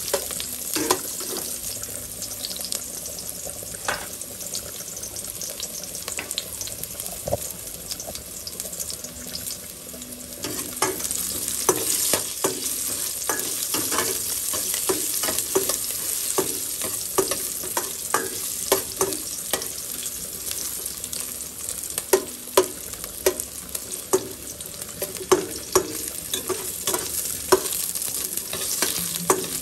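Ginger and shallots sizzling in a little oil in a stainless steel pot, with a metal spoon scraping and clinking against the pot as they are stirred. About a third of the way through, the sizzle gets louder and the clinks come more often.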